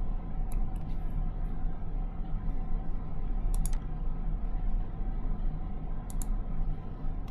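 A few light computer-mouse clicks, a pair about three and a half seconds in and another pair near six seconds, over a steady low electrical hum in the background.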